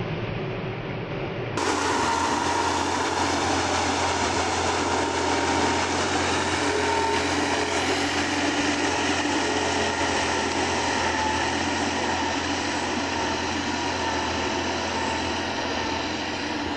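Massey Ferguson 9500 tractor engine running steadily under load as it drives a 2-metre rotavator through flooded, muddy ground. The sound grows louder about a second and a half in.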